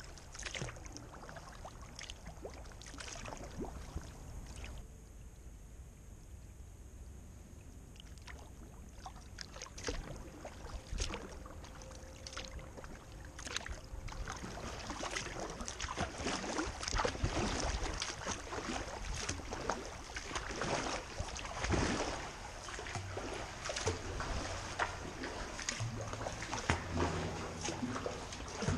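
Kayak paddle strokes dipping and splashing in the water, with water sloshing and gurgling along the hull. The strokes come sparser at first and grow louder and more frequent about halfway through.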